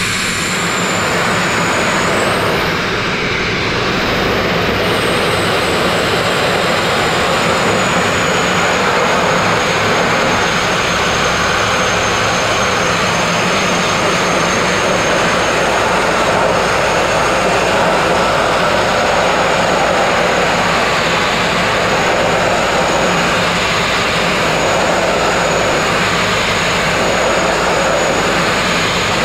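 Sandblasting nozzle blasting copper slag grit against a narrow boat hull to strip paint and filler: a loud, steady rushing hiss with a thin high whistle over it.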